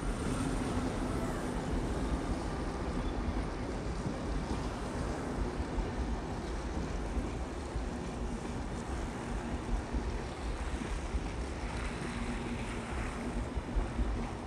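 PKP Intercity passenger coaches rolling past on the rails as the train comes into the station, a steady rumble of wheels on track.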